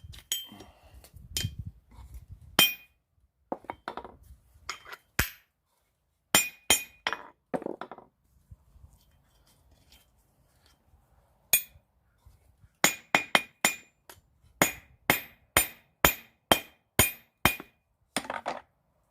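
Blacksmith's hammer striking a knife blank on an anvil, drawing out the blade, with sharp ringing clinks. The blows come irregularly at first, then, after a pause near the middle, as a steady run of about two a second.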